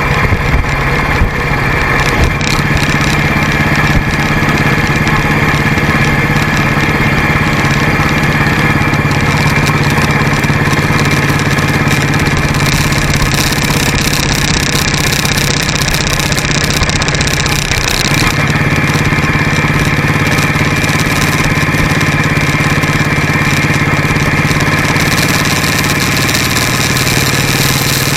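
Motorcycle engine running steadily under way, with a slight change in its note about two-thirds of the way through.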